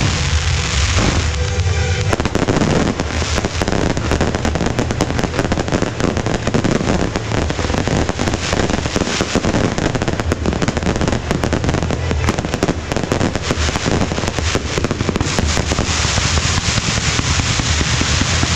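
Fireworks barrage: a dense, unbroken crackling and popping of launching comets and bursting glitter shells. Music plays underneath at the start and again near the end.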